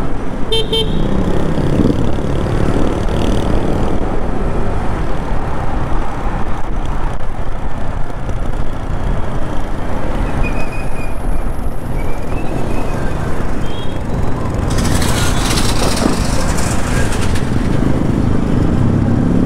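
Motorcycle riding through city traffic: steady engine and road noise with wind rushing over the on-board microphone. A hiss rises about fifteen seconds in and lasts a couple of seconds.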